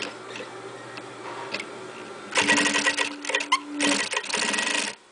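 Juki DDL-5550 single-needle industrial lockstitch sewing machine, fitted with a rolling foot, stitching through a strip of thick leather. It starts about halfway in, runs for about two and a half seconds with a steady hum under the rapid stitching, and stops suddenly.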